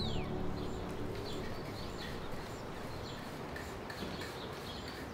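Small birds chirping here and there, faint short calls over a steady outdoor background hiss.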